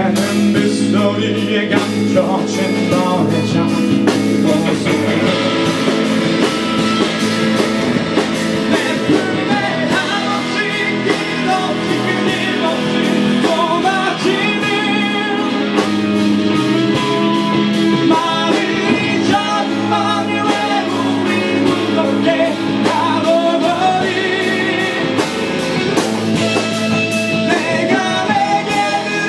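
Live rock music from a small band: an electric guitar played through an amplifier, with singing.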